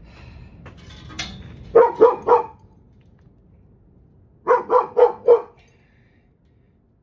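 A dog barking: three quick barks, then four more in a row about two seconds later.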